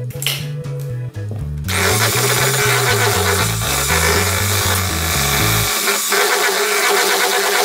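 Electric hand mixer switched on about two seconds in, its motor running steadily with a constant hum as the beaters whip an egg into cake batter in a plastic bowl. Background music with a bass line plays underneath.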